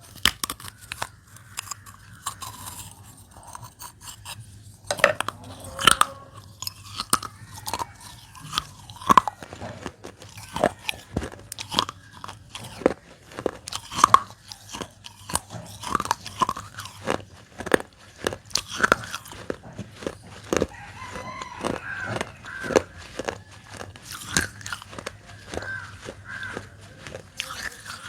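Dry baked clay being bitten and chewed close to the microphone: a run of sharp, irregular crunches and cracks, several a second at times.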